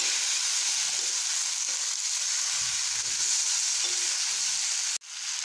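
Spiced potatoes and green onions sizzling in oil in a steel pan while a spatula stirs them. The sound cuts out for an instant near the end.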